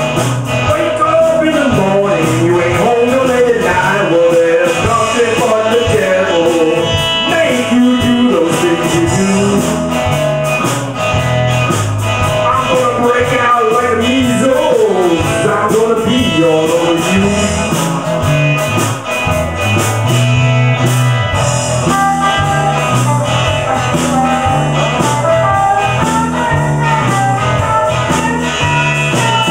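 A band playing a bluesy rock number live, with guitar.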